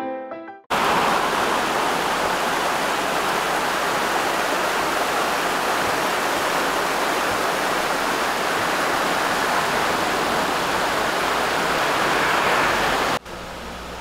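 Mountain stream rushing over rocks in a small cascade: a steady, full rushing of water that cuts in sharply about a second in, just after a soft piano tune fades out, and drops to a quieter hiss near the end.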